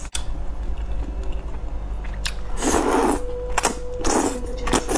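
Thick noodles being slurped into the mouth in three noisy pulls in the second half, with wet mouth clicks between them.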